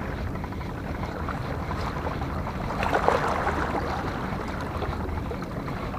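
Steady outdoor wind and water noise over a low rumble, with a brief louder rush of noise about three seconds in.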